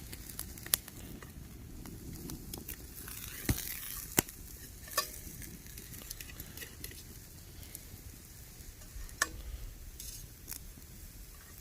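Pork chops and vegetables sizzling on a grill over a campfire, with several sharp clicks and clinks, a few of them ringing briefly like metal being tapped. The loudest click comes about four seconds in.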